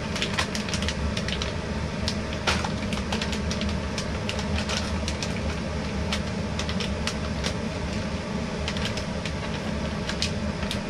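Plastic packet of enzyme deodorizer cubes crinkling and crackling in the hands as it is opened, an irregular run of small crackles with a sharper click about two and a half seconds in, over a steady low hum.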